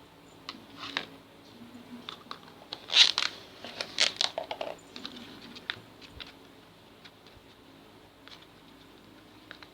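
Plastic container and stirrer being handled: scattered light clicks and taps, with a louder burst of scraping and crinkling about three to five seconds in.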